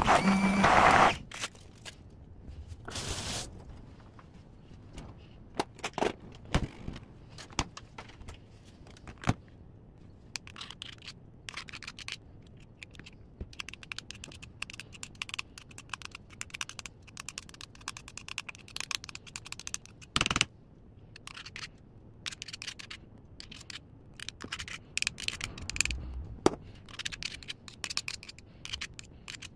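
Braun MultiQuick 5 hand blender motor running on garlic in a steel bowl, cutting off about a second in; then scattered clicks, clinks and scrapes as the metal blending shaft is lifted and handled against the bowl and foil, with a couple of short louder bursts.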